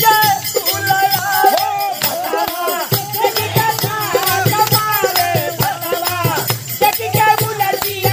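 Bhojpuri pawariya folk dance music: a bending, wavering melody line over a steady percussion beat.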